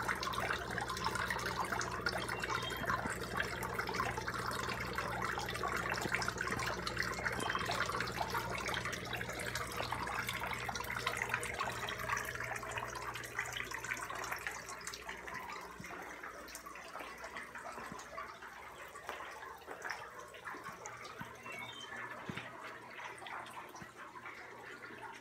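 Hang-on tank filter pouring a steady stream of water into a tub of water, splashing and trickling over a low motor hum; both fade over the second half.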